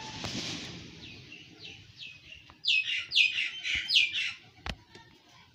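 A small bird chirping: short, downward-sliding chirps, faint at first, then a louder, quicker run of them about halfway through. A sharp click near the end.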